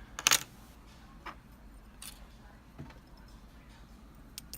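Metal clicks of a Mul-T-Lock Junior lock and its key being handled: a sharp clatter of clicks just after the start, then a few faint ticks.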